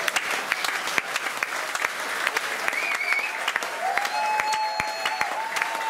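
Theatre audience applauding, many hands clapping steadily in a dense patter.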